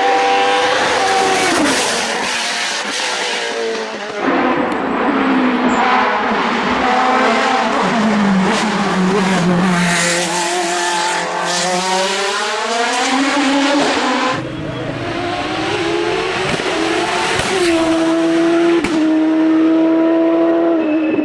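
Hill-climb race car engines at high revs, accelerating and shifting gear as the cars pass one after another. Their pitch swoops down and back up, with abrupt changes from one car to the next.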